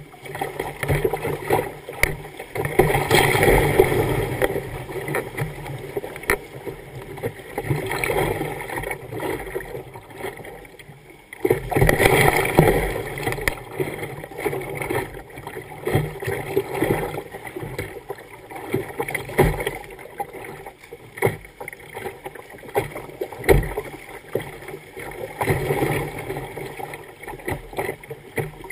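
River water rushing and splashing against the bow of a kayak running a rapid, in loud surges as waves break over the bow, with frequent sharp knocks of water slapping the hull.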